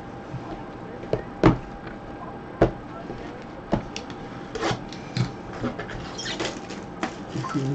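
Cardboard Bowman baseball-card blaster boxes handled by gloved hands, knocked against each other and set down: about eight irregular sharp taps and knocks, the loudest about a second and a half in.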